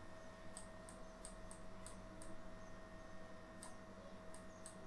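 Light, irregular clicks of a stylus tapping a digital writing surface as numbers are handwritten, about nine clicks spread unevenly, with a gap in the middle.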